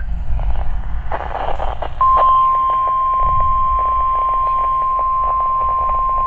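NOAA Weather Radio's 1050 Hz warning alarm tone: a single steady high-pitched beep that starts about two seconds in and holds without a break, heralding a broadcast warning. Radio hiss and static run underneath and fill the first two seconds.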